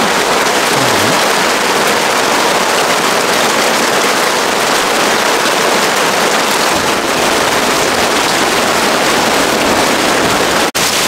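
Heavy rain pouring down, a dense steady hiss; the sound cuts out for an instant near the end.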